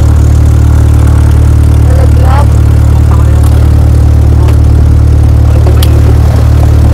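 Cessna 172's piston engine and propeller running with a loud, steady drone.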